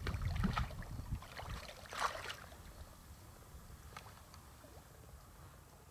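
Splashing water as a hooked trout thrashes at the surface close to the bank. It is loudest in the first second and again about two seconds in, then dies down to a few small splashes.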